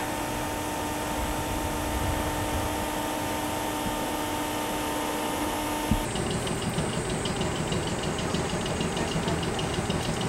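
Running noise of an old local train car heard from inside: a steady hum with two held tones, then, after a sudden change about six seconds in, rougher car and rail noise with a faint fast ticking.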